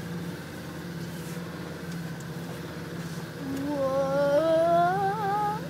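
Land Rover Defender engine running steadily, heard from inside the cabin. About three and a half seconds in, a person hums a rising, wavering note over it for about two seconds, louder than the engine.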